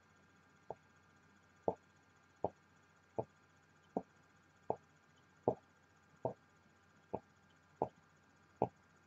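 Soft puffs of breath from the mouth, about one every three-quarters of a second, as vapour is pushed out in rings.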